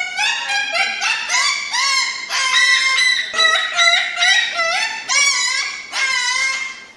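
Crested cockatoo calling: a rapid run of short, loud, pitched squawks, many rising in pitch, tailing off near the end.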